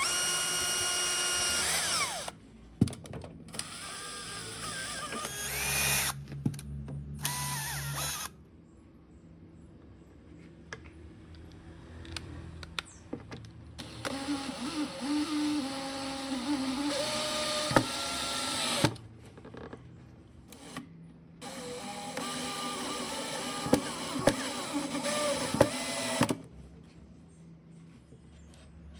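Power tool running in four bursts of a few seconds each, with short quiet pauses between them and its pitch shifting within each burst.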